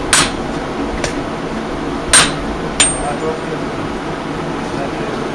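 Blacksmith's hammer striking red-hot iron on an anvil. Four sharp blows come about a second apart in the first three seconds, the last with a brief high ring from the anvil. Only a steady background hum follows.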